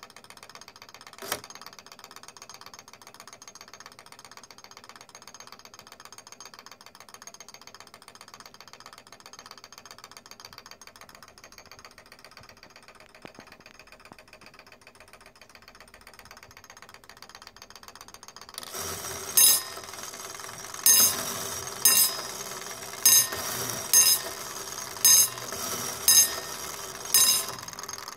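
An 18th-century (1730) Thomas Kefford of Royston grandfather clock with a London movement striking the hour: its strike train starts running about two-thirds of the way in, and the hammer hits the bell eight times, about once a second, each blow ringing on. Earlier, one sharp click sounds about a second in over a low steady background.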